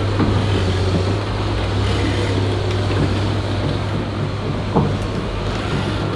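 Heavy excavator diesel engines running steadily as the machines strain on a recovery strap, with a single knock late on.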